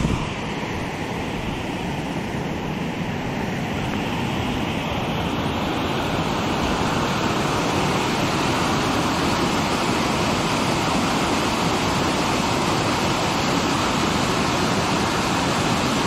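Steady rushing of water, growing slightly louder over the first several seconds.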